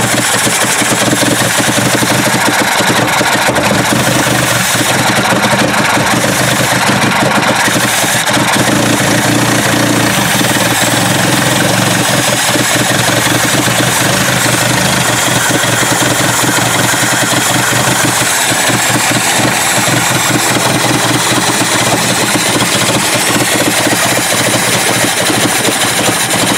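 Ford Cortina Mk3's carburetted engine running steadily: a long-dormant engine, timing just advanced a touch, keeping running.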